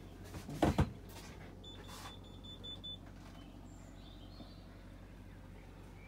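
Two loud, close thumps in quick succession, then a faint high-pitched beep-like tone that runs for about a second and a half, over a low steady hum.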